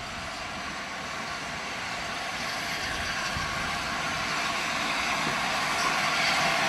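LNER A4 Pacific steam locomotive No. 60007 drawing in tender-first, a steady rushing noise that grows louder as it approaches.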